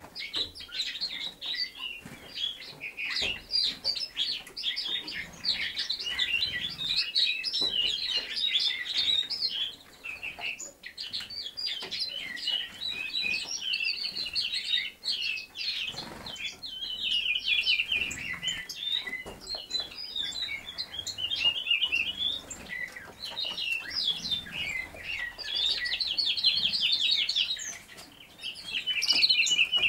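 Small birds chirping and twittering in rapid, overlapping high-pitched runs, with short lulls about a third of the way in and near the end.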